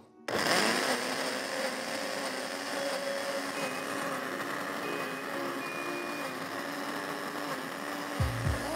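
Electric countertop blender switching on a moment in and running steadily, puréeing soaked chestnuts with water into a thick cream.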